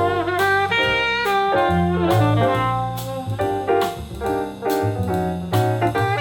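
Jazz music: a horn melody over a moving bass line and drums.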